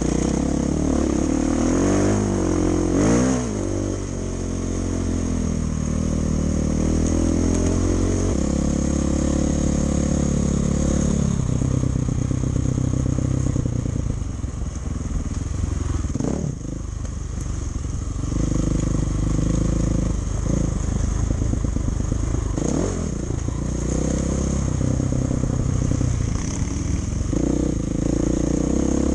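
Dirt bike engine running on a rough trail ride, its pitch rising and falling with throttle and gear changes. A few sharp knocks break through during the ride.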